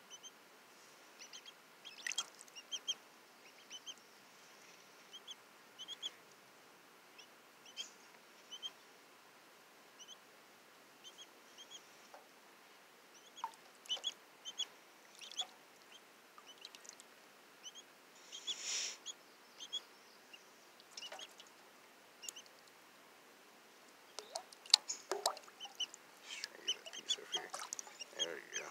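Two-day-old Cayuga ducklings peeping, short high peeps repeated every second or so, while paddling in a plastic tub of water. Water splashes and dabbling get busier near the end.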